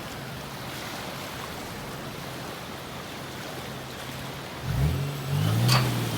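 Surf washing steadily, then an engine comes in about four and a half seconds in and rises in revs, with a sharp click near the end.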